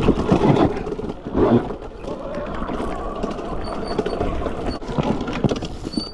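Arctic Leopard electric bike ridden off road: a steady rumble of tyres and wind on the microphone, with knocks and rattles from rough ground, heaviest in the first two seconds. A few brief high peeps come in the second half.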